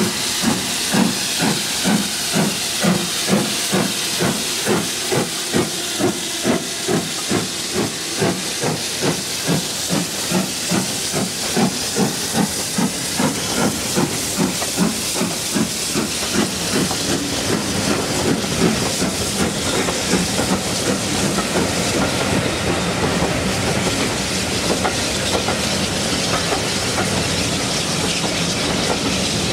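BR Standard Class 7 'Britannia' two-cylinder 4-6-2 steam locomotive working a train past: exhaust chuffing about twice a second over the hiss of steam from its open cylinder drain cocks. After about fifteen seconds this gives way to the steady rumble of the coaches rolling by.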